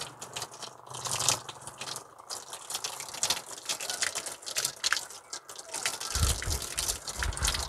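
Running water pouring and splashing over a rose plant's root ball as the soil is rinsed off by hand. A low rumble joins in near the end.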